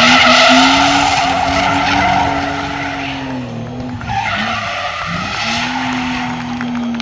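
Rally car engine held at high revs while its tyres squeal in two long bouts of sliding, the engine note dipping briefly between them.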